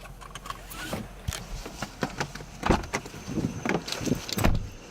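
Car doors being opened and shut as people get out to check a noise: a string of clicks and knocks, with two heavier thumps, one near the middle and one near the end.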